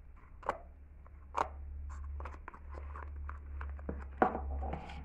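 Fingers poking and pressing thick slime in a plastic tub: a run of sharp sticky pops and clicks with short squishy crackles between them, irregularly spaced, with a stronger pop about four seconds in.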